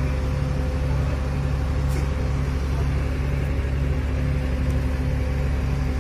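Heavy diesel engine of a lifting crane running steadily: a low drone with a faint steady whine and a low throb repeating about twice a second.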